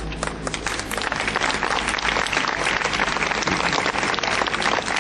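Audience applauding: dense clapping of many hands that grows a little louder about a second in.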